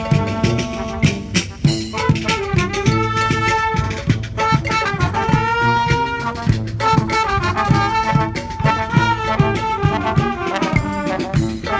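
Live brass band playing a horn melody of trumpets, saxophones and trombones over a steady drum beat.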